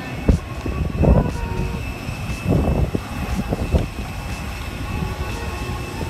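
Strong wind buffeting the microphone in irregular gusts, with a steady high-pitched whine running underneath.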